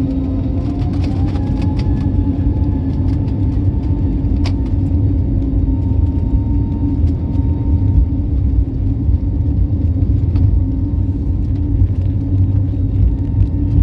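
Airliner jet engines heard from inside the cabin: a loud, steady rumble with a low hum and a few steady tones, one of them gliding up in pitch about a second in.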